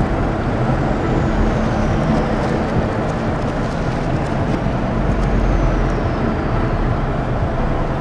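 Road roller's engine running steadily as the heavy steel-drum machine creeps along on concrete.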